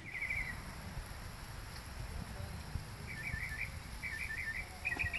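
A small bird singing short trilled phrases of quick repeated notes: one brief trill at the start, then three in a row in the second half, over a low steady rumble.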